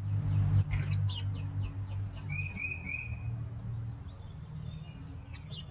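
Songbirds chirping: quick high notes about a second in and again near the end, and a run of three short chirps in the middle, over a steady low rumble.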